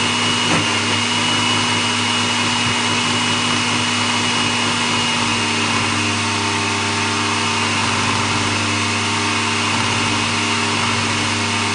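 Cecotec Mambo kitchen robot's motor and blades running at speed 9, chopping raw quince and lemon pieces: a loud, steady whir with a constant low hum and a high whine.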